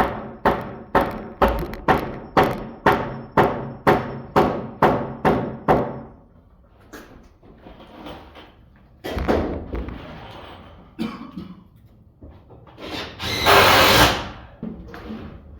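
A hammer pounding wood in a steady run of about thirteen blows, roughly two a second, knocking a tight-fitting floor joist into place. The blows stop about six seconds in. Scattered knocks and handling follow, with a short loud rushing noise about thirteen seconds in.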